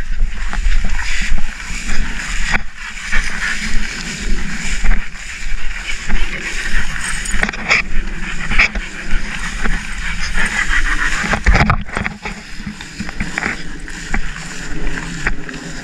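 Footsteps swishing and rustling through tall grass, with wind buffeting the microphone in an uneven low rumble.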